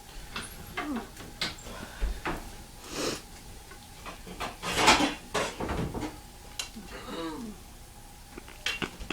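A cooking utensil knocking and scraping against a frying pan while an omelet cooks: a string of short clinks and scrapes, the loudest about five seconds in.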